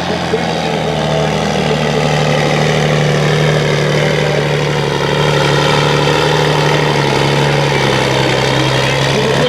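Standard-class pulling truck's diesel engine run at high, steady revs. The pitch steps up about a second in, holds, and drops slightly near the end.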